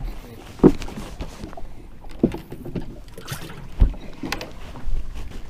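Several knocks and thuds from moving about and handling things in a fishing boat, the loudest a little before four seconds in.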